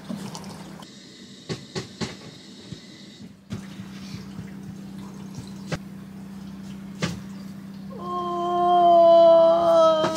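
A woman's long drawn-out vocal 'ahh' as she stretches, starting about eight seconds in, held on one pitch and slowly falling. Before it, a low steady hum with a few light clicks.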